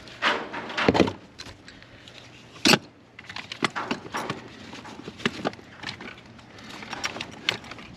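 Irregular clinks and knocks of things being handled, with one louder knock a little under three seconds in.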